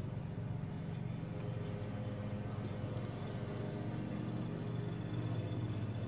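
Steady low machine hum with a few faint steady tones above it, unchanging throughout.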